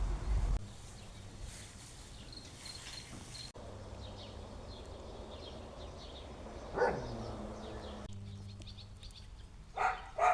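A dog barking twice, close together, near the end. About two-thirds of the way in there is a single sound that slides down in pitch.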